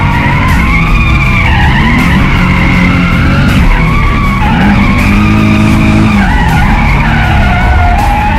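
Nissan 350Z's V6, fitted with headers and test pipes, revving up and down again and again while the tires squeal through a drift.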